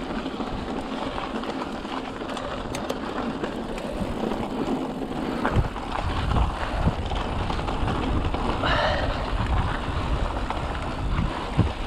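Mountain bike rolling fast over a dirt singletrack trail: steady tyre and trail noise, with the bike thumping over bumps a few times from about halfway on.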